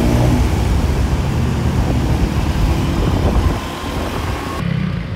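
A motorbike riding through traffic, heard from the pillion seat: a dense rush of wind on the microphone over the low rumble of the engine. It cuts off sharply near the end.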